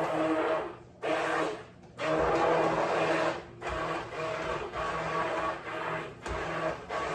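Handheld immersion blender puréeing a pot of butternut squash soup, its motor running in spurts and stopping briefly several times as it is pulsed.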